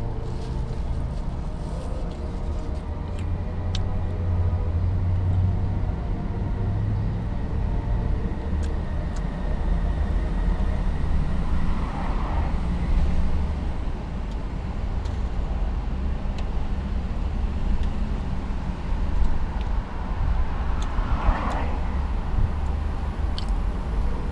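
Road traffic heard from inside a parked car: a steady low rumble, with a car swelling past and fading about twelve seconds in and another near the end.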